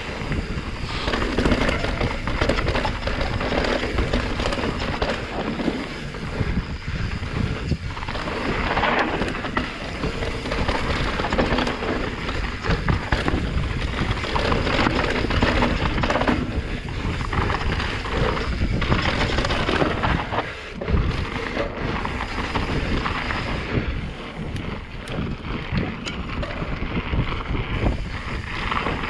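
Enduro mountain bike descending a rough trail, heard from an action camera: wind buffeting the microphone over the constant noise of tyres on dirt and rock, with irregular knocks and rattles from the bike taking the bumps.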